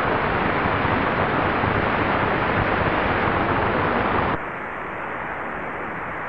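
Shortwave radio static from a Tecsun PL-680 receiver tuned to a weak signal on 14944 kHz: a steady hiss with no voice clearly heard. About four seconds in, the radio is switched from AM to USB mode, and the hiss suddenly drops to a quieter, duller sound.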